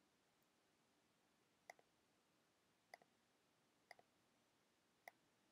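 Four faint clicks from a computer mouse and keyboard, a little over a second apart, the third a quick double click, over near silence.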